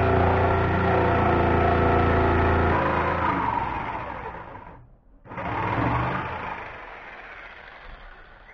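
Electric jigsaw running steadily as its blade cuts a curve through a wooden plank. It slows and fades, stops about five seconds in, then runs again briefly and winds down.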